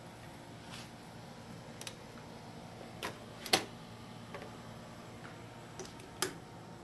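Several short, sharp clicks and taps at irregular intervals, the loudest just past halfway and another strong one near the end, over a faint steady hum.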